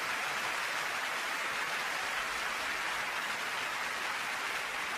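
Large concert-hall crowd applauding, a steady even clapping.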